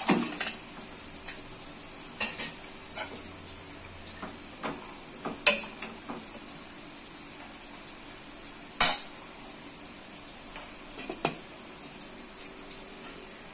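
Fish pieces tipped off a steel plate into a stainless steel pot of boiling broth, then a steel ladle clinking against the pot as it stirs, in scattered light clicks. There is a louder single clank about nine seconds in.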